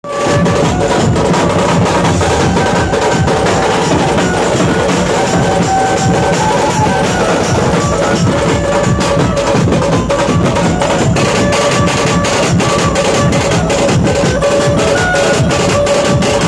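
Dhumal band music: fast, dense drumming under a melody of held notes, loud and unbroken.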